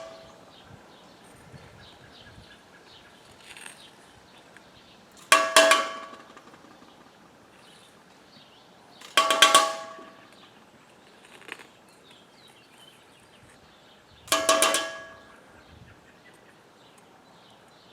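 Three ringing metal clanks, about four to five seconds apart, each dying away within a second: the skimming tool being knocked against metal to shed dross while molten brass is being cleaned.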